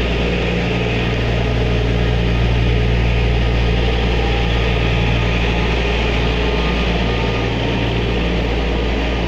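Diesel engine of a Plasser 09-32 CSM track tamping machine running steadily as the machine rolls slowly past, a loud, even drone with a deep hum.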